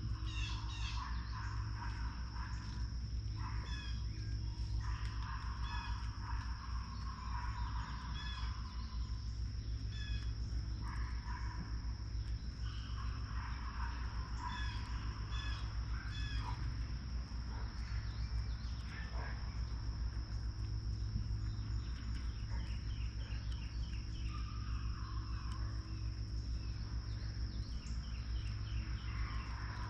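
Wild birds chirping and calling around a feeder, many short calls throughout, over a steady high-pitched drone and a low steady rumble.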